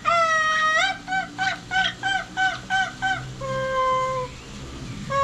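Parrot vocalising in a whistle-like, tune-like pattern: a long held note, then a quick run of short rising-and-falling notes, about four a second, then another long held note, and a fresh long note starting near the end.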